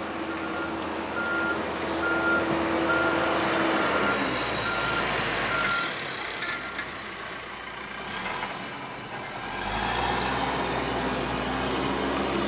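Steady road and engine noise of a moving vehicle in winter driving, with a regular high electronic beep, about one and a half a second, that stops about seven seconds in. The road noise swells about ten seconds in.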